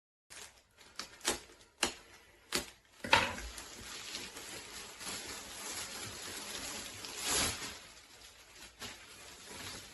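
Rustling and handling noises as clothing and packaging are unpacked from a parcel. A few sharp clicks come in the first three seconds, the loudest about three seconds in, then steady rustling with a louder swell about seven seconds in.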